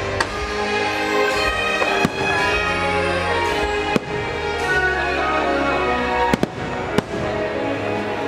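Fireworks show: several sharp firework bangs, a second or two apart, over continuous show music with sustained chords.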